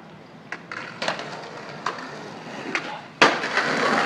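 Skateboard wheels rolling on concrete, growing louder as the board approaches, with a few sharp clicks; about three seconds in, a loud smack as the board lands at the bottom of a stair set, then loud rolling over rough concrete.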